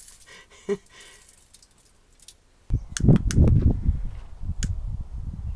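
Faint shaking of a seasoning jar, then from a little under three seconds in a loud, gusty low rumble of wind on the microphone outdoors, with a few sharp clicks.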